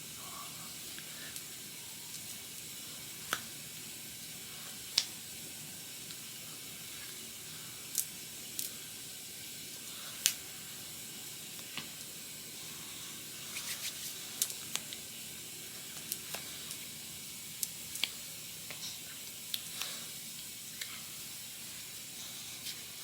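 Quiet, steady hiss with scattered short clicks and taps, a few close together about two-thirds of the way through.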